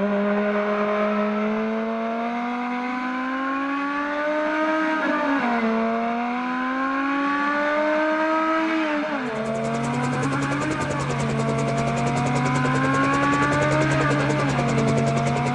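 Car engine accelerating through the gears: the engine note climbs steadily, then drops sharply at each upshift, three times.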